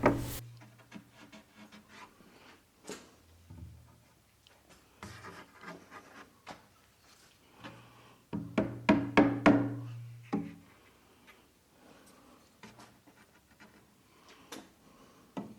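Background music with sustained low notes and sharp percussive hits.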